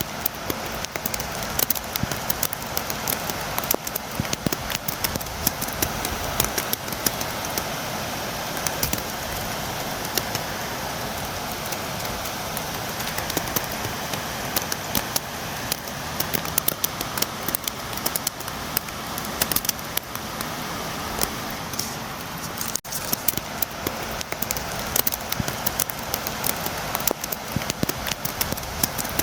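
Steady rain with many sharp, close drops tapping against a window, a dense crackling patter over an even rush, with a momentary break about 23 seconds in.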